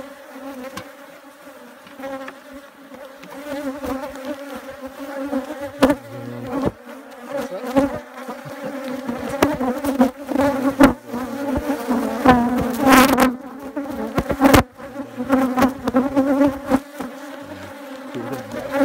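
Honeybees buzzing loudly around open hives, a close steady drone, with a few sharp knocks and handling noises through the middle and later part.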